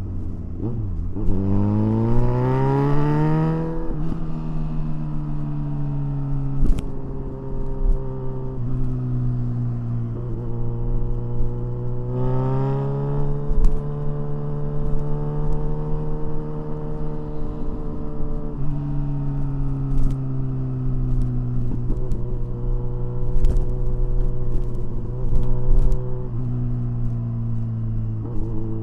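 Kawasaki Ninja 1000SX inline-four engine under way, twice accelerating with its pitch climbing and then dropping in steps at gear changes, with steadier running in between. A few brief sharp clicks cut through.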